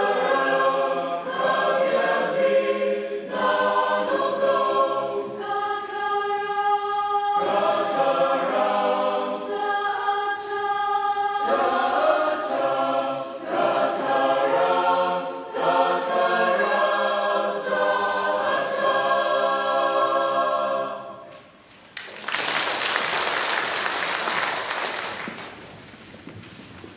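Mixed choir of young men and women singing in harmony, ending on a held chord about 21 seconds in. A few seconds of applause follow.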